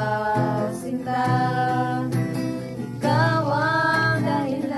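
Several women's voices singing a song together to a strummed acoustic guitar, with a wavering, drawn-out sung note in the second half.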